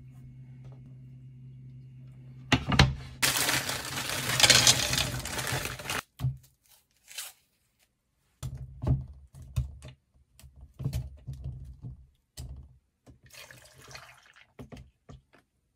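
Kitchen food-prep sounds: a faint low hum, then about three and a half seconds of loud rushing, pouring-like noise, followed by scattered knocks and handling sounds. Near the end, milk is poured from a carton into a plastic blender jug with a softer pouring sound.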